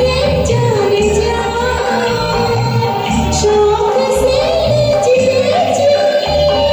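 Woman singing a Hindi film song in long, gliding held notes over a karaoke backing track with a steady, pulsing bass beat.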